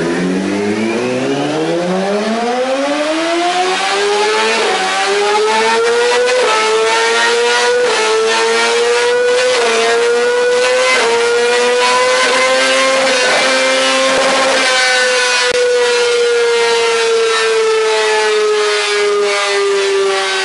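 Sport motorcycle engine run up through the gears on a chassis dyno: the pitch climbs steadily for about five seconds, then holds high with a short dip at each of several gear changes, and eases down over the last few seconds.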